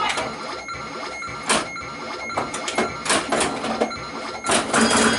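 Bally Flash Gordon pinball machine in play: irregular sharp clacks from flippers, coils and the ball striking the playfield, densest near the end, over the machine's steady electronic tones.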